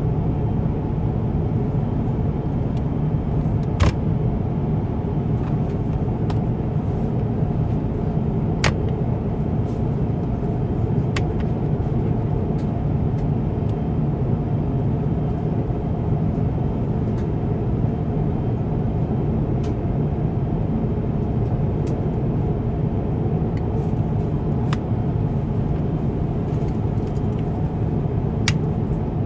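Steady low drone of an Airbus A350-1000's passenger cabin, engine and airflow noise heard from inside, with a few faint clicks about 4, 9, 11 and 28 seconds in.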